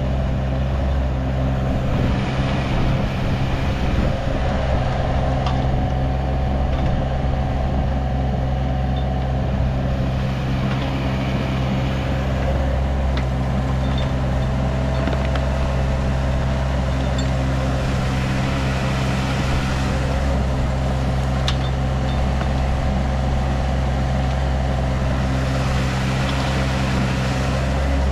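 A 6,000-pound diesel mini excavator runs steadily at working throttle while digging, its engine a constant low drone. A few faint clicks come through over the engine.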